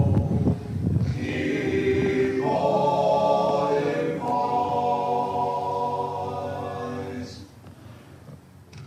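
A group of voices singing unaccompanied in harmony, the close of a sea shanty: the singers hold a long final chord that fades out near the end.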